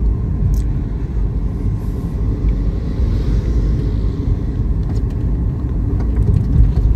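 Steady low rumble of road and engine noise inside the cabin of a Toyota Yaris being driven along, with the engine itself very quiet.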